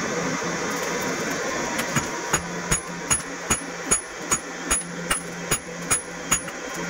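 Steady rushing noise with a low hum for about the first two seconds. Then a hand hammer strikes hot iron on an anvil in a steady rhythm, about two and a half blows a second.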